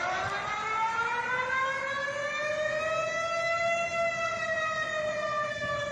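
Civil-defence-style warning siren winding up: one wailing tone rising slowly in pitch for about four seconds, then levelling off and beginning to fall, over a steady hiss.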